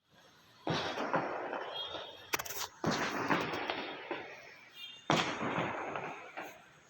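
Thunder: three sudden sharp cracks a couple of seconds apart, each rolling off into a rumble that fades over a second or two, sounding like gunfire.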